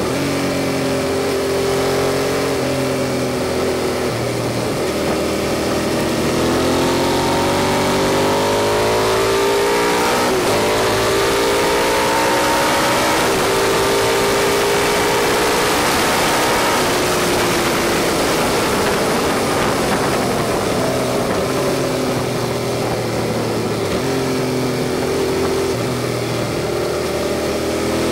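Suzuki SV650's V-twin engine heard from on board at track speed, climbing in pitch through the gears with short drops at each shift, falling away and picking up again through the corners, over a steady wind rush.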